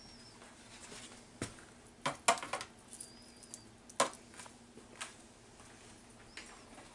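A kitchen utensil and lasagna noodles clicking and tapping against a disposable aluminium foil pan: a few separate sharp taps, loudest about two and four seconds in, over a faint steady hum.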